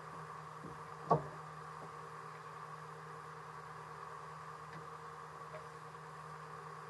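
A boat's engine running with a steady drone, with one sharp knock about a second in and a few faint ticks after.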